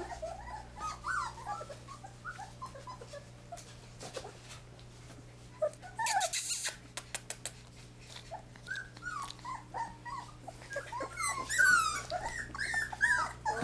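Young puppies, almost four weeks old, whimpering and whining in many short high calls that bend up and down in pitch, busiest near the end. There is a brief loud rustle about six seconds in.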